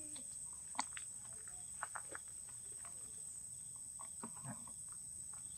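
Insects shrilling in one steady high-pitched tone, with scattered small clicks and rustles; the sharpest click comes about a second in.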